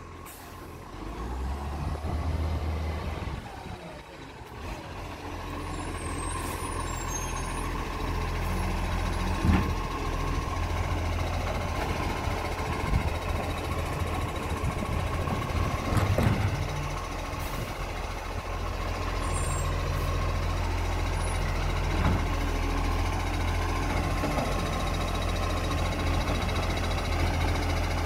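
Side-loading garbage truck's diesel engine running as it drives up and stops beside a wheelie bin, growing louder over the first several seconds, with a steady high whine above the engine. A few short sharp sounds come through, about a third of the way in, midway and later on.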